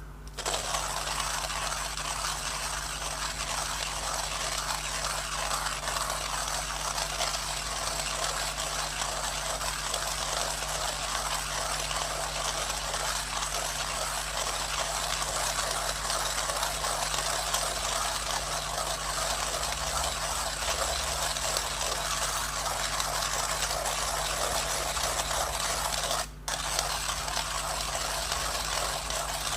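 Millwright hand coffee grinder being cranked, grinding coffee beans for pour-over: a continuous grinding rattle that starts abruptly and breaks off briefly near the end before going on.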